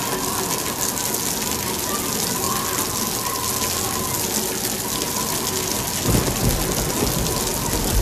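Steady heavy rain pouring down, with a low rumble of thunder coming in about six seconds in.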